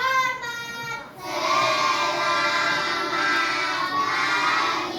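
Children singing together in unison: a short sung phrase ends about a second in, then the group holds a long drawn-out note.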